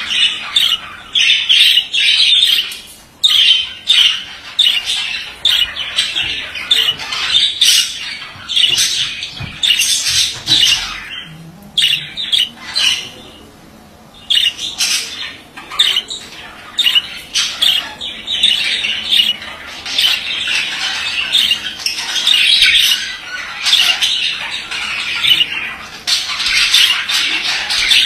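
Male budgerigar warbling and chattering: a dense run of quick chirps, squawks and scratchy warbles, with a short lull about halfway through.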